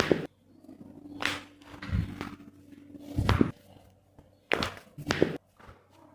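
A series of about six dull thuds and knocks, roughly a second apart, with a faint steady hum under the first half.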